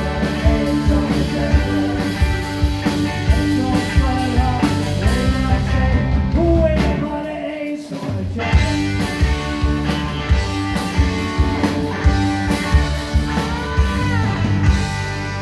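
Live blues-rock band playing loudly: singing over electric guitars, bass guitar and a drum kit. The drums drop out briefly about halfway, and near the end the drumming stops while a held chord rings on as the song closes.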